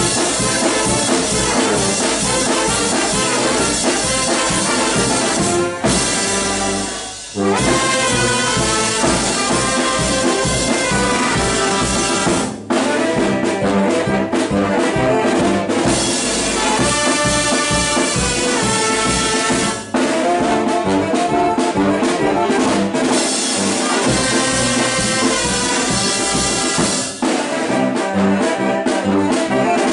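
Mexican street brass band playing a lively tune: trumpets, trombones, saxophone and tuba over a bass drum with a mounted cymbal and a snare drum, with a few brief breaks between phrases.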